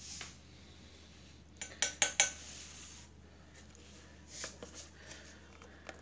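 A paintbrush's metal ferrule clinking against a stainless steel bowl as the brush is lifted out of the descaling solution: four quick, sharp metallic clinks about two seconds in, then a fainter knock a couple of seconds later.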